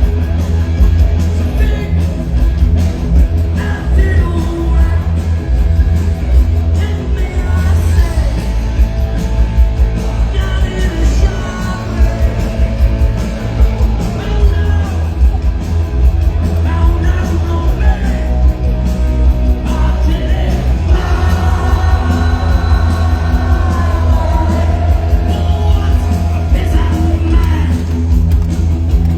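Live punk rock band playing at full volume with a singer, heavy on the bass.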